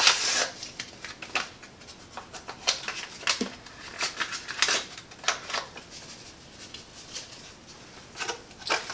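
Paper seasoning-mix packets rustling and crinkling as they are handled and shaken out over the roast, in irregular short bursts.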